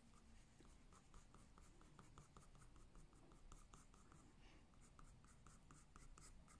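Faint scratching of a dark graphite pencil on drawing paper, in quick short strokes a few times a second, laying down individual hairs of fur.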